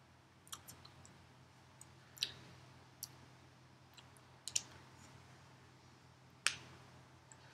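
Faint, scattered small clicks and taps, about ten of them at irregular spacing, the sharpest about two seconds in, about four and a half seconds in, and near the end. They come from a person signing silently, as hands meet and mouth movements make small sounds, over a faint steady room hum.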